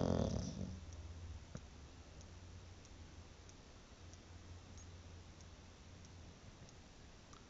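A sleeping pet's snore fading out within the first second, then a quiet pause between snores. Faint regular ticks come about every two-thirds of a second.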